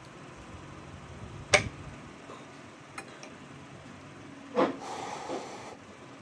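Spoon and fork clinking and scraping on a ceramic plate of rice and noodles: a sharp clink about a second and a half in, a faint one near three seconds, then another clink and about a second of scraping.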